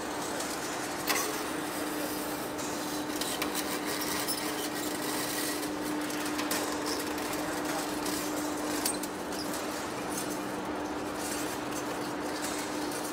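Heavy lathe turning a large steel workpiece: a steady machine hum under the scraping of the cutting tool. Scattered sharp ticks of flying chips come through, one louder about a second in.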